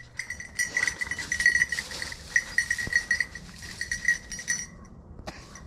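Bell on a hunting dog's collar jingling irregularly as the dog moves through cover, pausing briefly near the end.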